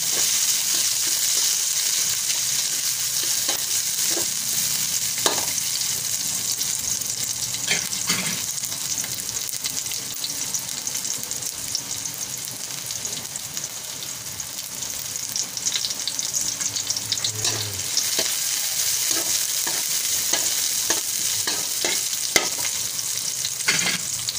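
Chopped onion and garlic sizzling steadily in hot oil in a metal wok, with scattered clicks and scrapes of a spatula stirring against the pan.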